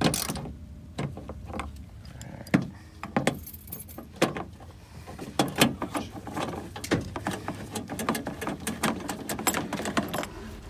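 Torx screws being backed out of a Sprinter's plastic door-handle trim with a T27 Torx driver. Many irregular clicks and scrapes of the metal tool on the screws and the plastic, coming thicker in the second half.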